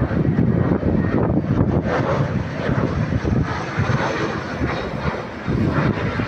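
Jet engines of an Airbus A320-family airliner on final approach, a steady low rumbling noise that eases slightly near the end.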